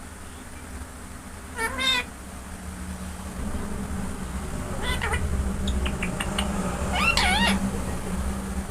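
Ringneck parrot mimicking a cat's meow: three short meow-like calls, about two, five and seven seconds in, over a steady low hum.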